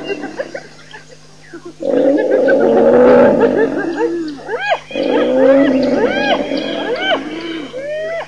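Wild animal confrontation between a lioness and a clan of spotted hyenas. Low growling and snarling runs under many overlapping hyena yelps and squeals that rise and fall in pitch. The noise breaks out about two seconds in after a brief lull.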